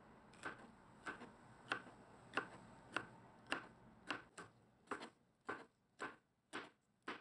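Kitchen knife slicing a green bell pepper on a cutting board: a steady rhythm of crisp knocks of the blade through the pepper onto the board, about one and a half to two cuts a second, a dozen in all.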